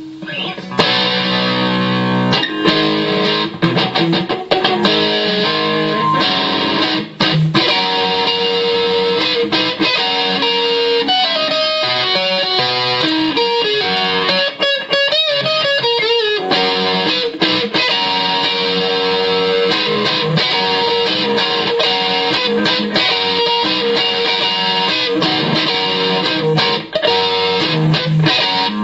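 Electric guitar played through a Boss ME-20 multi-effects pedal, mostly strummed chords and picked notes ringing out. In the middle comes a stretch of bending, wavering notes.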